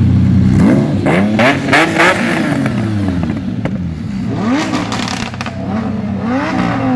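Lamborghini Diablo's V12 idling, then revved three times: a long rev about half a second in, with a few sharp crackles, then two shorter blips about four and six seconds in, each falling back to idle.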